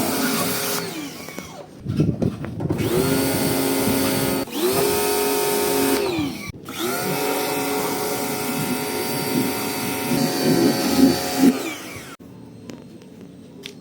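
Kärcher electric pressure washer spraying, its motor spinning up and winding down several times as the trigger is pulled and released, with the hiss of the water jet over it. It stops near the end.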